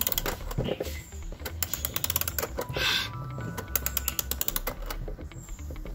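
Key-winding of a Japanese-made Fareena pendulum wall clock: the click and ratchet of the winding arbor clicking in short runs of rapid clicks as the key is turned.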